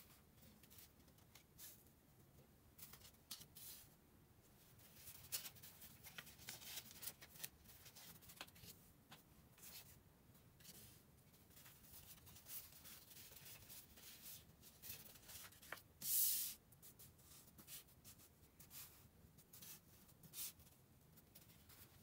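Faint rustles and light taps of paper cards being handled and set down on a tabletop, with one louder brief swish of paper about sixteen seconds in.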